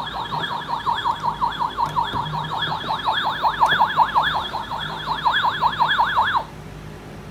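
Electronic siren-like sound effect from a toy alien spaceship's built-in speaker: a warbling tone that sweeps quickly up and down, about four times a second, then cuts off suddenly about six and a half seconds in.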